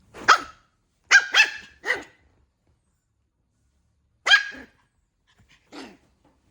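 A puppy barking in short, high yaps: four in quick succession in the first two seconds, then two more spaced out.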